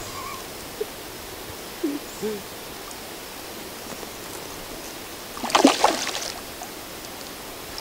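A hooked pla pluang (soro brook carp) thrashing at the surface, a loud splash about five and a half seconds in, over steady stream and forest background. A few short hooting calls come in the first two seconds.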